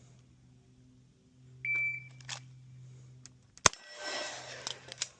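A shot timer's start beep, one steady high tone, then a pistol shot about two seconds later with a long echo. A few metallic clicks from the reload follow, and a second shot comes right at the end.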